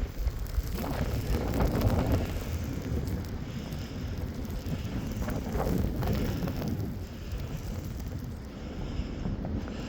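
Blizzard wind gusting and buffeting the microphone, rising and falling in strength.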